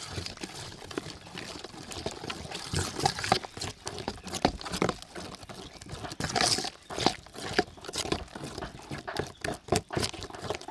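A metal spoon stirring thick flour-and-water batter in a stainless steel bowl: irregular scrapes and clinks of the spoon against the bowl as it works through the wet batter.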